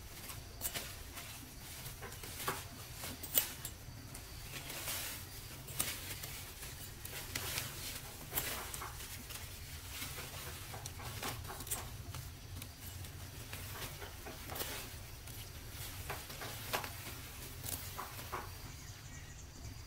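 Irregular crisp snaps and rustles of pumpkin vine shoots being broken off and gathered by hand among the leaves, over a steady low rumble.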